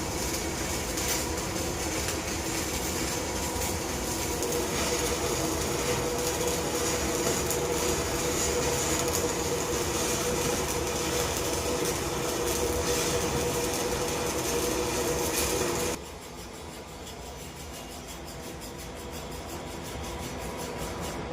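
Stick-welding arc on galvanized iron pipe, crackling and hissing steadily. It cuts off suddenly about sixteen seconds in, leaving a quieter steady background noise.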